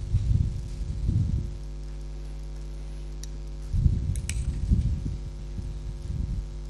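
Steady electrical mains hum, with two spells of low, muffled thumps and rumbling: one at the start and one from about four seconds in, with a couple of faint clicks in the second.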